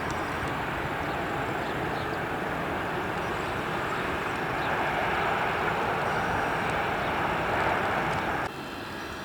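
Jet airliner engines running, a steady rumble that grows a little louder, then cuts off suddenly near the end.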